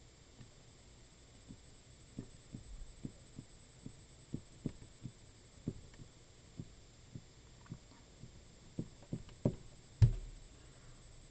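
Soft, irregular low knocks of a hand working on the desk while words are written by hand in a computer paint program, about one or two a second. One louder bump comes about ten seconds in.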